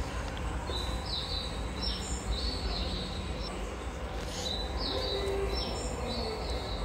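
Recorded bird-chirp guidance signal playing from a station loudspeaker, the same short chirps and held high tones repeating about every two seconds over a steady low rumble. Japanese stations play this sound to mark the stairs for visually impaired passengers.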